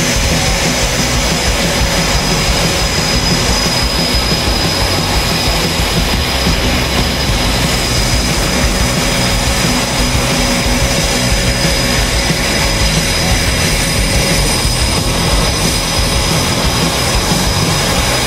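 Twin General Electric F414 turbofans of an F/A-18F Super Hornet running at ground idle: a steady loud rush with a thin high whine on top.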